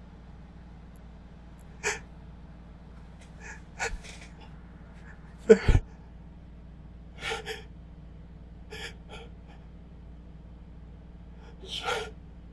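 A person's breath catching in short gasping intakes every second or two as a sneeze builds. One louder, sharp double burst comes about five and a half seconds in.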